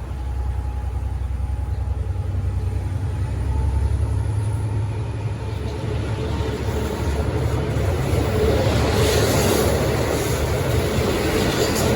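A train running past at close range: a low rumble, then the noise of wheels on rails growing louder from about six seconds in, with clatter near the end.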